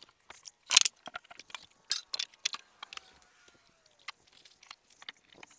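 Cardboard box and plastic wrapping rustling and scraping as a boxed bathroom wall cabinet is pulled out and unwrapped. There is one loud scrape about a second in and scattered crackles after it.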